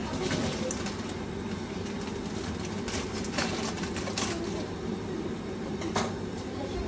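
Chicken breast pieces sizzling steadily in oil in a frying pan, with several sharp clicks of a metal fork against the pan and the glass bowl as the cooked pieces are moved.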